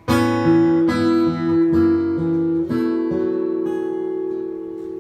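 Acoustic guitar playing the opening of a song: a few chords struck about a second apart, the last left ringing and slowly fading.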